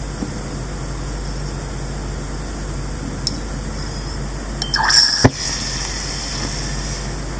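Caesium metal reacting violently in a glass beaker of liquid: a sudden hissing fizz about five seconds in with a sharp crack at its peak, then a short sizzle as it burns and dies away. A steady low hum runs underneath.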